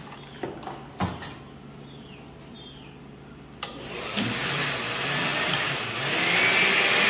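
Countertop glass-jar blender: a couple of knocks as the jar is set on its base, then about three and a half seconds in the motor switches on and runs, blending a liquid mixture. It gets louder about six seconds in and stays steady.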